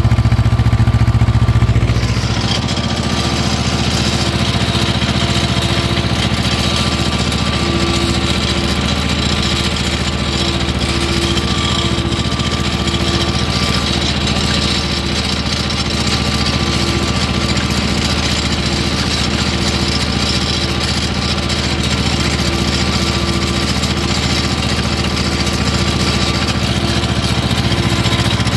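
Ursus C-330M tractor's two-cylinder diesel engine running steadily under load, pulling a plough through the soil. There is a heavier low rumble for about the first two seconds.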